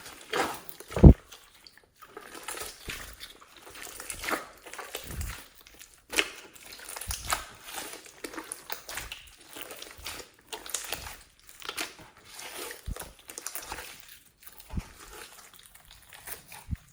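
Slime being squeezed and kneaded by hand, giving irregular wet crackles and pops, with a low thump about a second in.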